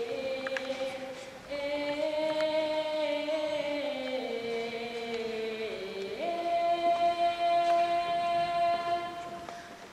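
A girl singing solo in Russian folk style: a slow, drawn-out melody of long held notes. About six seconds in she rises to a high note and holds it until near the end.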